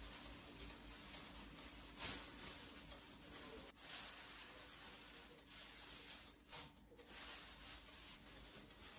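Quiet food-handling sounds: faint rubbing and soft touches as a cheese slice is handled and laid onto a lettuce-and-ham sandwich, over a low hiss.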